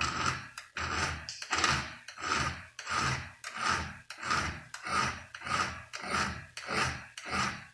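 Flat file rasping across the depth gauges (rakers) of a chainsaw chain in steady, even strokes, about two a second, lowering the rakers after checking them with a depth gauge.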